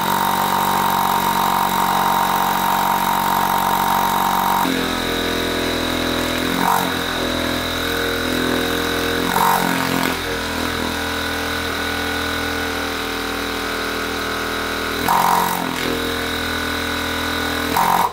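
Rebuilt Hitachi air suspension compressor, an electric motor driving a piston pump, fitted with a new piston and barrel, running on test off a battery. Its note changes and drops about five seconds in as the outlet is blocked to build pressure. A few brief louder spurts follow, and it cuts off suddenly at the end. It is pumping enough pressure after the rebuild.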